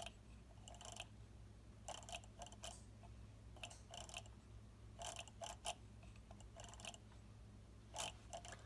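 Necchi Supernova toy hand-crank sewing machine being cranked: faint clicking and clattering of its small mechanism in short clusters about every second and a half.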